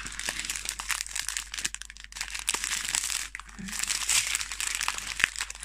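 Small clear plastic resealable bags of diamond painting drills crinkling as they are handled and shuffled, a continuous crackle with many small clicks.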